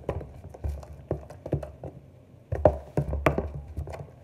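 A utensil stirring foamy slime in a clear plastic tub, knocking and scraping against the plastic in irregular taps, with the loudest knocks in a cluster about two and a half seconds in.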